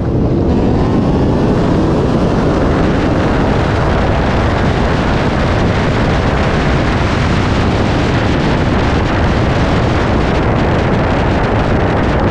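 Twin-turbo Coyote 5.0 V8 Mustang under hard acceleration at highway speed, its engine running together with heavy wind rush over the camera in a loud, steady roar.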